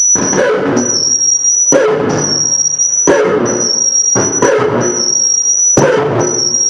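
Harsh noise music: a thin, high-pitched steady whine broken about every second and a half by loud bursts of dense, distorted noise, in a repeating pulse.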